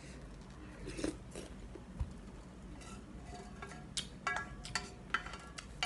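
Spoon scraping and tapping the inside of a black enamel pan, a scatter of short clinks, several with a brief metallic ring, most of them bunched about four to five seconds in.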